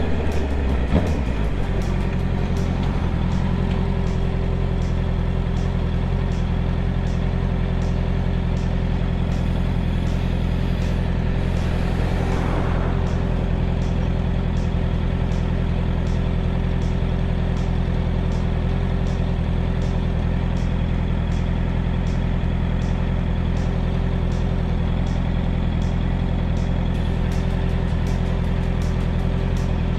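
Honda CB650R's inline-four engine running steadily at constant revs, heard from an on-bike camera while cruising on the highway. Its pitch settles after the first second or so and then holds without change, with a faint regular ticking high above it.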